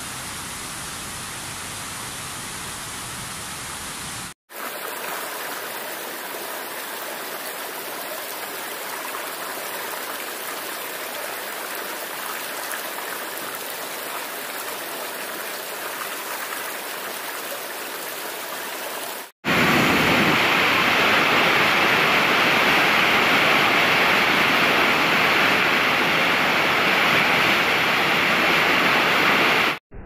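Steady rush of water pouring over falls, in three takes broken by brief dropouts about 4 and 19 seconds in. The last take is much louder and brighter than the first two.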